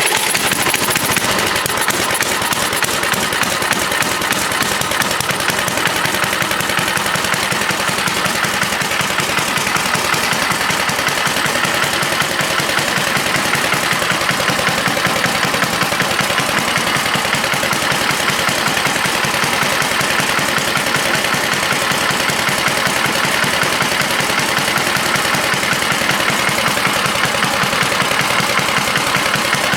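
John Deere snowblower's small gas engine catching and running steadily with a fast even beat, just after being primed and pull-started; the owner says its carburetor needs to be adjusted a bit.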